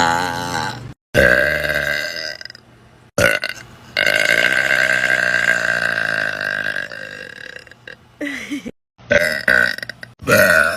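A person burping several times in a row, loud and voiced. The middle burp is long and drawn out, lasting about three seconds, with a slowly falling pitch.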